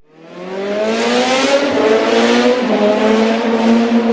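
Kawasaki ZZR1400 inline-four engine accelerating with wind rush. The pitch rises and then holds steady, and the sound fades in over the first second.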